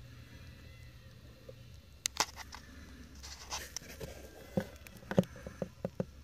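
A low steady hum, then a scatter of sharp clicks and taps from about two seconds in, the loudest about five seconds in.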